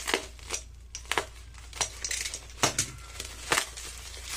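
Plastic bubble wrap crinkling and crackling as it is slit with a utility knife and pulled open by hand, in a string of irregular sharp clicks.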